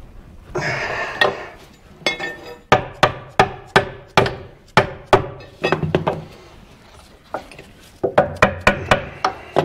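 Hammer blows on steel, knocking a rusted steering clutch control lever back and forth on its splined shaft to work it loose. Sharp metallic strikes come in runs, a couple a second, quickening to about four a second near the end.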